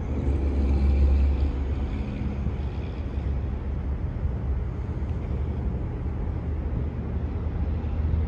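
F-unit diesel locomotive running, a steady low engine rumble that swells about a second in and then holds level.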